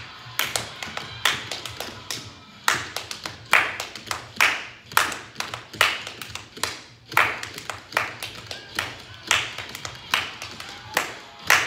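A person clapping hands, about two claps a second at an uneven pace, each clap ringing briefly off the hard walls and floor, over faint music.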